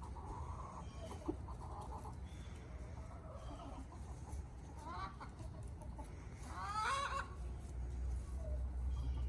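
Young Buff Brahma rooster calling twice: a short call about five seconds in, then a louder, longer one about a second and a half later. A low rumble underneath grows stronger near the end.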